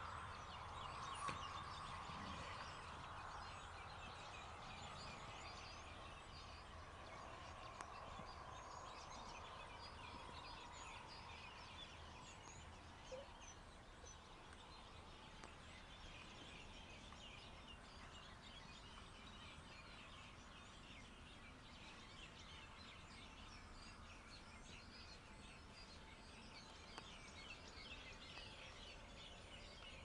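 Quiet outdoor background with faint, scattered bird chirps, and a faint hum that fades away over the first ten seconds or so.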